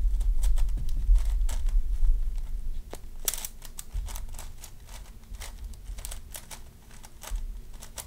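Layers of a plastic 7x7 speed cube being turned by hand, a run of quick, irregular clicks and clacks. A low rumble under the clicks stops about three seconds in, and the turning grows quieter after that.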